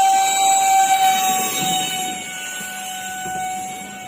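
64 mm electric ducted fan of an RC jet running at full throttle: a steady high whine with ringing overtones that grows fainter from about halfway through.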